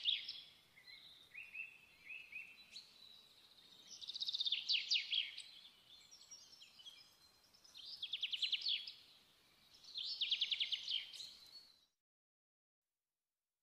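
A songbird singing: bursts of rapid trilled notes about every three to four seconds, with softer chirps between them, cutting off abruptly to silence near the end.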